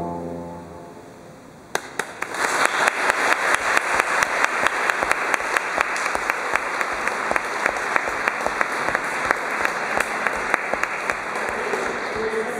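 Audience applause breaking out about two seconds in, after the last of the music fades, and going on steadily, with a regular beat of louder claps running through it.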